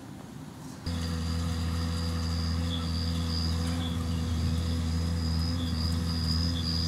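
Lamborghini R7.210 tractor's engine running at a steady working speed while pulling a Pöttinger TOP 842C rotary hay rake. It gets suddenly louder about a second in, then holds a steady drone.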